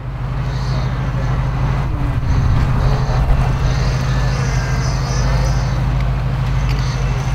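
Suzuki SJ off-road vehicle's engine running steadily as it crawls over rocks, a low drone that holds level throughout.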